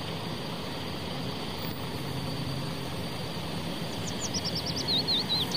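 Coach bus's diesel engine running with a steady low hum. Birds chirp in quick repeated notes from about four seconds in.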